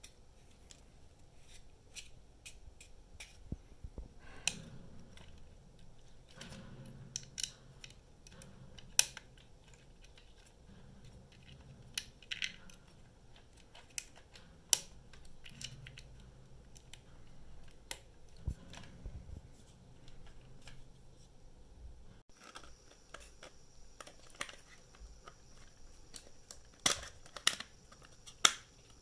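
Irregular sharp clicks and taps of hard plastic as the side covers of a DJI Inspire 2's avionics bay are handled and pressed into place by hand. The loudest clicks come about nine seconds in, about fifteen seconds in, and twice close together near the end.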